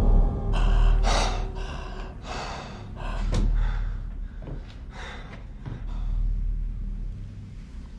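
A person taking a series of sharp, gasping breaths over a steady low rumble, the loudest in the first three seconds.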